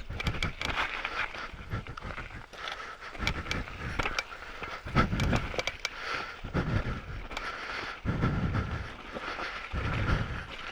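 Canyon Sender full-suspension mountain bike rattling and clicking over rough, rocky trail, with heavy breaths puffing straight onto a microphone in front of the rider's mouth every second or two.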